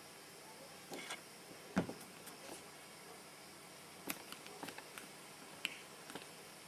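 Faint steady hiss with scattered small clicks and taps, and one sharper low knock about two seconds in.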